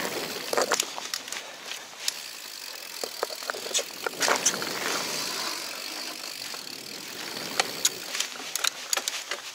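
Mountain bike rolling fast down a dirt trail: a steady rush of tyre noise on dirt, with many short sharp clicks and rattles from the bike over bumps.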